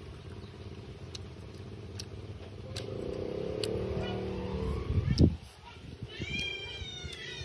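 A motor vehicle's engine, building up and loudest about five seconds in, then dropping away. Near the end comes a short run of high, repeated animal calls.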